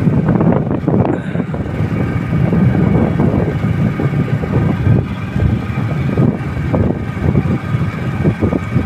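Loud, steady low rumble of a moving vehicle heard from on board, with a faint steady whine above it.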